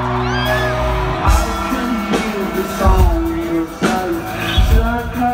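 Live rock band playing a slow, heavy groove with singing: a held chord at first, then a hard bass-drum beat lands about every second and a half from about a second in.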